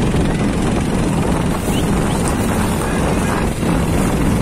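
Steady, loud rushing rumble of wind buffeting the microphone beside a grass-fire line where a fire whirl is turning.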